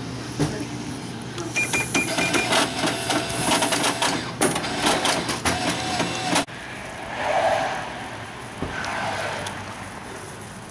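Shop checkout at a cash register: a short electronic beep about a second and a half in, then a run of clicks and rattles. It cuts off abruptly about six seconds in to quieter, steady outdoor noise.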